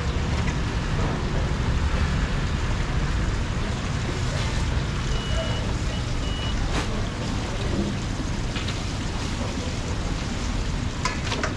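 Steady background noise of a busy street food stall, a low rumble with a hiss over it. A short high double beep sounds near the middle, and there are a few sharp clicks, one about seven seconds in and a cluster near the end.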